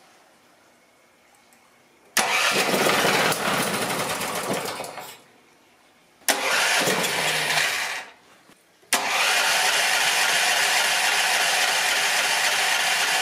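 Predator 420cc single-cylinder engine on a new carburetor catching and running for a few seconds, then dying away, three times over. The engine is starving for fuel: the new carburetor's bowl bolt lacks the fuel pickup hole.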